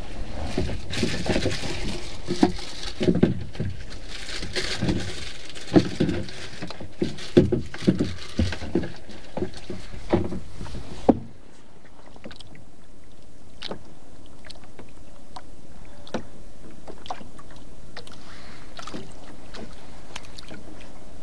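Irregular knocks and thumps of hands handling fishing gear against a small wooden boat, with bursts of hiss. About eleven seconds in the knocking stops abruptly, leaving a steady hiss of open-sea ambience with a few light clicks.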